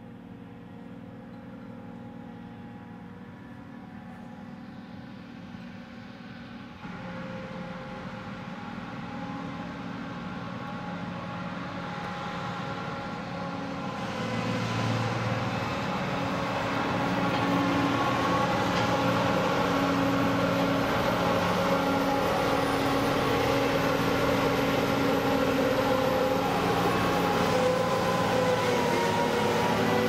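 Diesel engine of a John Deere T560 combine harvester running as the machine drives by. The engine note builds louder through the first half and then holds steady and loud.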